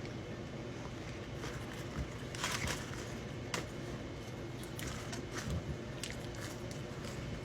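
Someone eating fast food: scattered bites and chewing with crackly clicks.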